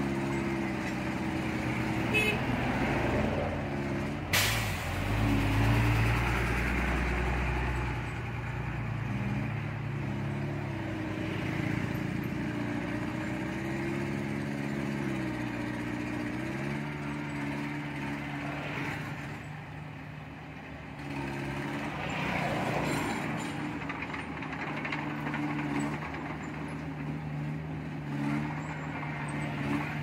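Diesel engine of heavy earthmoving machinery running, its pitch rising and falling as the revs change. There is a sharp clank about four seconds in, followed by a deep rumble lasting a few seconds.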